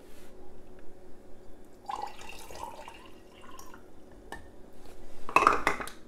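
Red wine vinegar poured into a glass mason jar partly filled with vinegar, a splashing trickle lasting about two seconds. Near the end come several sharp clinks and knocks, the loudest sounds here.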